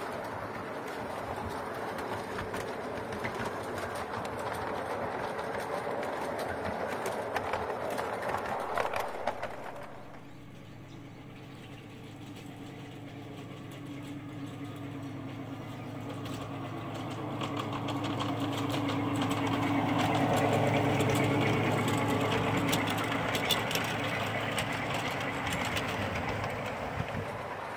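Miniature railway train running on 5-inch gauge track: heard from aboard, the wheels rumble and click over the rails. About ten seconds in the sound changes to the train's steady low drone, which approaches, is loudest around twenty seconds in, and fades as the train passes.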